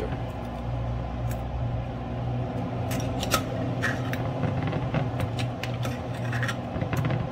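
Metal slotted spoon scraping and clinking against a hot cast-iron pan while juices are spooned over a chicken, a few sharp scrapes and taps scattered through, over a steady low hum.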